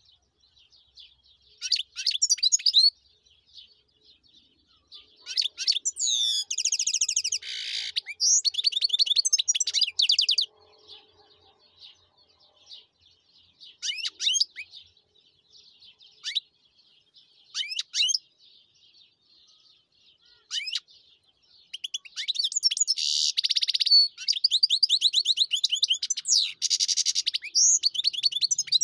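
European goldfinch singing in bursts of rapid, high twittering and trills. The longest runs come about five to ten seconds in and from about twenty-two seconds to the end, with short single calls between them. Faint chirping carries on underneath throughout.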